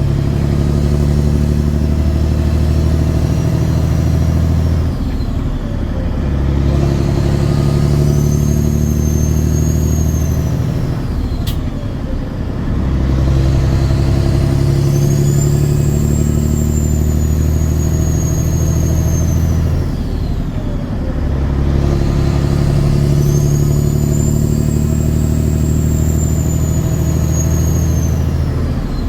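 Caterpillar 6NZ (3406E) diesel truck engine pulling up through the gears, its turbo whistle rising in pitch as it spools up in each gear and falling away at each shift. The engine note dips briefly at each gear change, about every seven to eight seconds.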